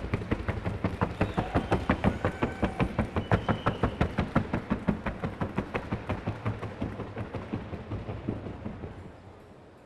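A paso horse's hooves beating fast and evenly on a wooden sounding board in the trocha gait, about five strikes a second, fading out near the end.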